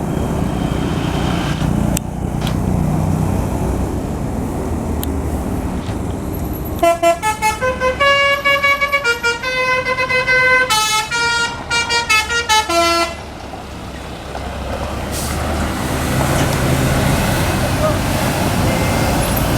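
Basuri 'telolet' multi-tone bus horn playing a quick tune of stepped musical notes for about six seconds, starting some seven seconds in. A bus engine runs underneath, rising again near the end as it passes.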